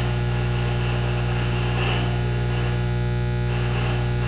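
Steady electrical mains hum, a low buzz with many evenly spaced overtones that holds at one level without change.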